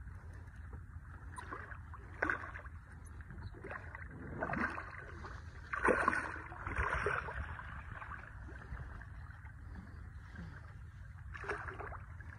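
Hooked redfish thrashing and splashing at the surface of shallow water in several short bursts, the biggest about six seconds in, over a steady low rumble.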